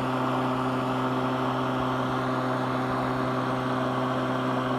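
Greenworks battery-electric lawn mower running at full power on a fresh battery: a steady, unchanging motor hum and whir with a few constant tones.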